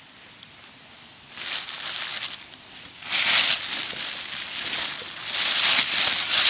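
Crinkling and rustling of handling noise as frozen bloodworm is taken from a plastic bag and worked by hand into damp groundbait in a bowl, with a jacket sleeve brushing close to the microphone. It is nearly quiet for about the first second, then rises in uneven swells, loudest in the second half.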